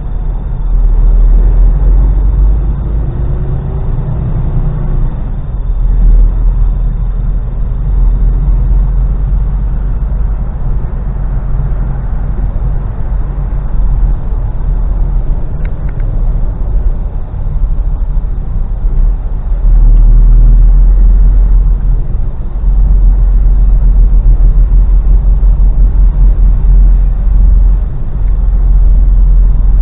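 Mercedes Actros truck heard from inside the cab while driving in slow traffic: a steady low engine and road rumble, getting louder about two-thirds of the way in.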